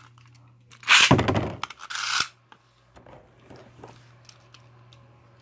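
A Beyblade ripcord launch into a plastic stadium: a loud zip of the launcher about a second in, then a shorter rasp. After that comes faint light rattling as the top spins on the stadium floor, over a steady low hum.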